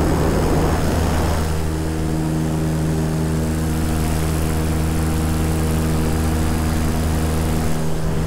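Electric paramotor's motor and propeller running steadily in flight: a constant hum made of several steady tones, with a rushing noise over it for the first second or so.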